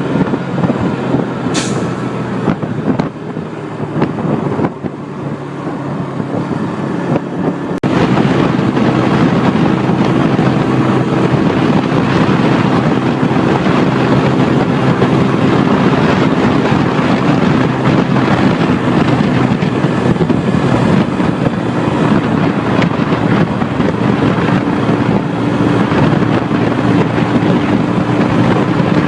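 Bajaj Boxer BM 125 X motorcycle's single-cylinder four-stroke engine running steadily under way, over a rush of wind and road noise. The sound gets abruptly louder about eight seconds in and then holds steady.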